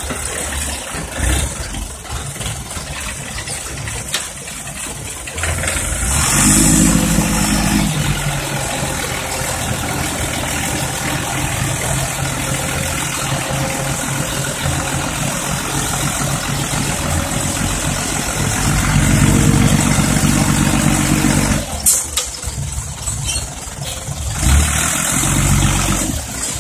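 Diesel engine of a six-wheel dump truck raised from idle to high revs about six seconds in to drive the hydraulic hoist, running steadily as the tipper bed lifts and the load of soil slides out, then dropping back about 22 seconds in.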